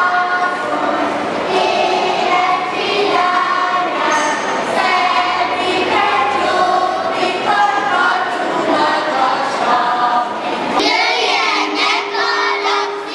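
A group of children singing a Hungarian folk song together as they dance. About eleven seconds in the song changes to quicker, more broken phrases.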